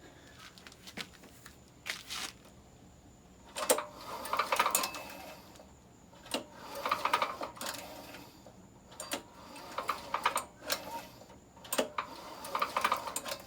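Predator small engine's recoil starter pulled four times with the spark plug out to check for spark. Each pull begins with a sharp click and is followed by about a second of rattly whirring as the engine spins over freely without compression.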